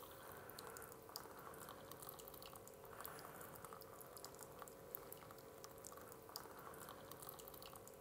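Faint, steady trickle of hot water pouring in a thin stream from a gooseneck kettle into a stainless steel coffee dripper, with small scattered splashing ticks. The dripper is being filled continuously to build up enough water to push through the metal filter.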